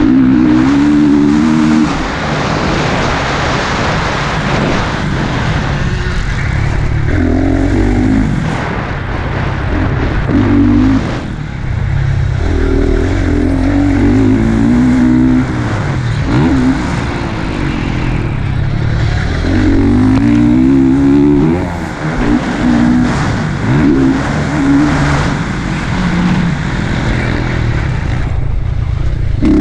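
Motocross dirt bike engine, heard close up from the rider's helmet camera, revving up and falling back over and over as the rider accelerates along the track and rolls off the throttle.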